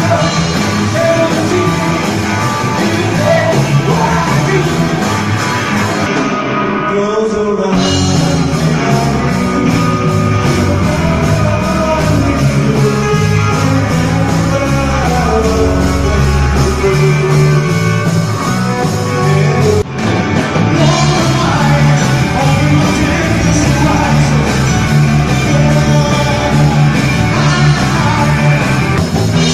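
Rock band playing a song with a singer's vocals and electric guitar.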